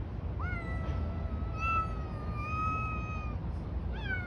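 Street cats yowling in a fight standoff: one long, wavering, drawn-out yowl starts about half a second in and lasts about three seconds, and another begins near the end. This is the threatening caterwaul cats make when squaring off.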